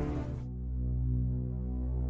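Background music: the fuller music fades out about half a second in, leaving a low, sustained drone.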